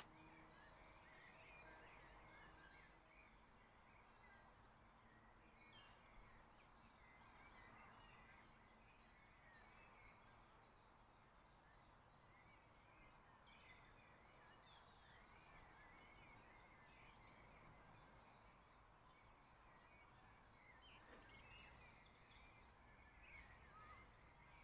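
Very quiet outdoor ambience: birds chirping faintly and often over a low, steady background hiss.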